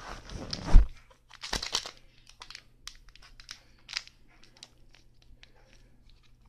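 A thump about a second in, then a small plastic seasoning packet from an instant-noodle pack crinkling and tearing as it is worked open, with scattered short crackles that thin out toward the end.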